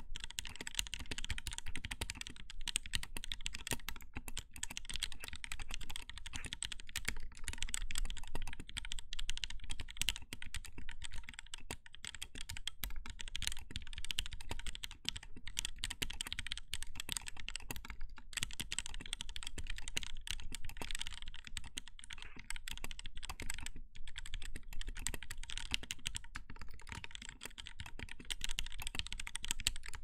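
Continuous typing on a Lyn Whale R2 tenkeyless mechanical keyboard: a sandwich-mount aluminium case with a 1.6 mm stainless steel plate, Gateron Yellow linear switches lubed with 205g0, Durock screw-in stabilisers and DCS keycaps. It makes a rapid, unbroken stream of key strikes and bottom-outs.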